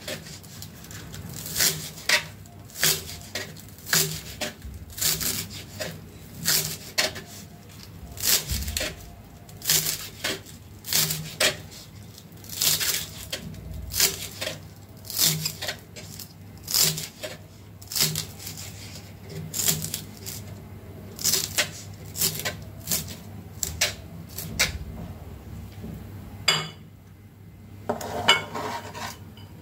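Kitchen knife chopping green onions on a plastic cutting board: sharp knocks of the blade on the board, about one a second, sometimes two close together. Near the end the blade scrapes across the board, pushing the chopped onions off.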